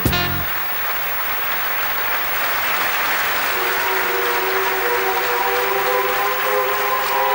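Audience applauding after a song, the band's last chord cutting off just after the start. About halfway through, a few steady held tones from the band come in under the applause.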